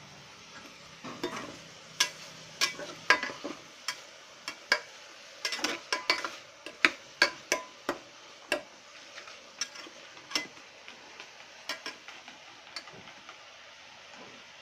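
Metal spatula stirring chicken and dried oysters in an aluminium pressure-cooker pot, scraping and knocking against the pot in quick irregular clicks. The clicks come thick and fast for the first eight seconds, then thin out.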